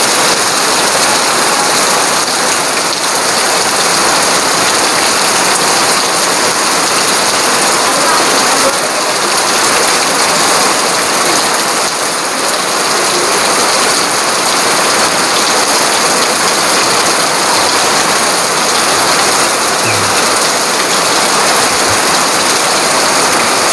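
Heavy rain falling steadily, with water pouring off the edge of a roof onto a wet terrace and dirt yard, as one dense, even hiss.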